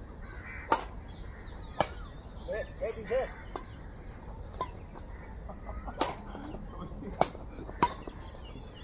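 Badminton rally: rackets striking a shuttlecock back and forth, a sharp hit roughly every second, about seven in all. Birds chirp in the background.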